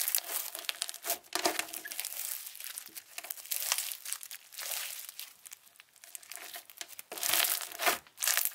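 Floam slime (Parakeet Slimes' Froyo Floam) being squeezed, folded and pulled apart by hand, its foam beads giving irregular crunches and crackles, with a louder burst of crunching about seven seconds in.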